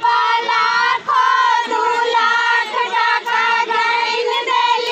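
Several young girls singing together in high voices, holding and bending long notes.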